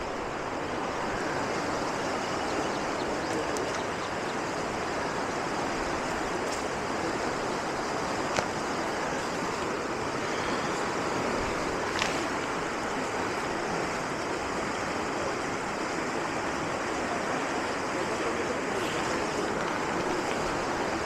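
Steady rush of flowing water, even and unbroken, with two faint clicks partway through.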